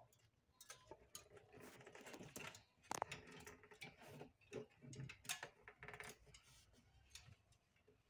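Faint scattered clicks and light knocks of a refrigerator evaporator coil being eased slowly back into place against the plastic freezer liner, with one sharper click about three seconds in.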